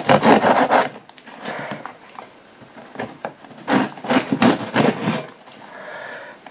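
A cardboard box being handled and opened, with rubbing and scraping of cardboard in two spells: one in the first second and another a little past the middle lasting over a second.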